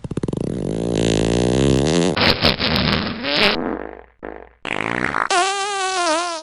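A run of fart sound effects, one after another. First a long buzzy one with wobbling pitch, then shorter raspy ones, a brief break about four seconds in, and a higher, wavering one near the end.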